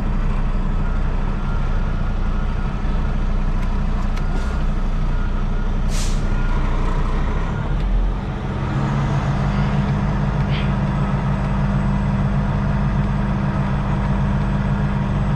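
Semi truck's diesel engine running at low speed while reversing a trailer, with a short sharp hiss of air from the brakes about six seconds in and the engine note picking up slightly after about eight seconds.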